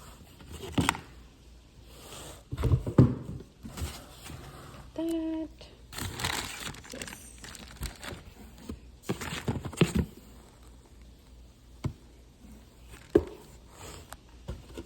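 Plastic packaging bags crinkling and rustling as mixer grinder parts are unpacked, with irregular knocks of the parts being handled. A short pitched sound comes about five seconds in.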